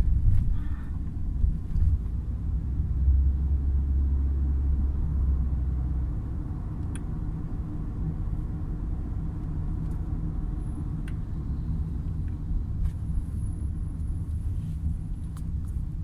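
Steady low rumble of a car's engine and tyres heard from inside the cabin while driving, swelling louder for a few seconds about three seconds in before settling.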